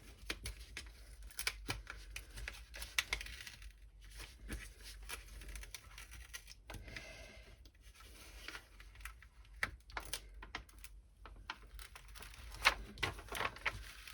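Diamond painting canvas and its plastic cover sheet being handled and rubbed flat by hand, with irregular crinkling, rustling and small taps, as a crease is worked out from the back.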